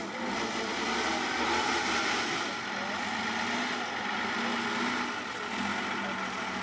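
Diesel engine of a 6x6 truck-trial truck running steadily.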